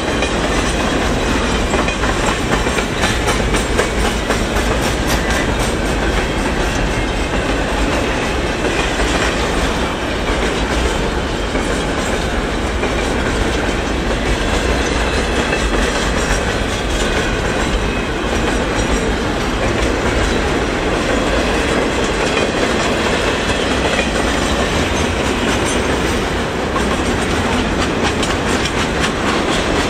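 Double-stack container well cars of a freight train rolling past at speed: steady wheel-on-rail noise with repeated clicks.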